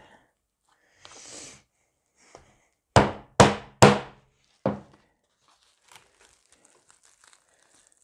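Rubber mallet striking a hole punch set on a mylar sheet over cardboard on a wooden table: three quick heavy thunks and a lighter fourth, the punch only starting to cut through the tough mylar. A crinkle of the foil-like sheet comes about a second in, with faint rustling after the strikes.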